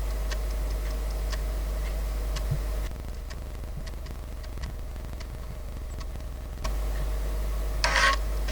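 Amiga 1200 floppy drive clicking as its head steps from track to track while an ADF image is written to a 3.5-inch disk, a sharp tick every half second or so, irregularly spaced, over a steady low mains hum. A brief louder rustle comes near the end.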